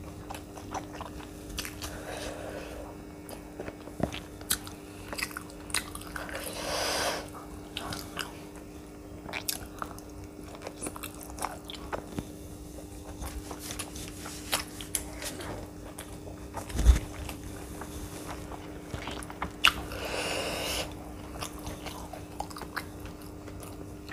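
Close-miked chewing of a mouthful of food, with many small wet mouth clicks and crunches and two longer breathy swells. A single low thump comes about two-thirds of the way through, over a faint steady hum.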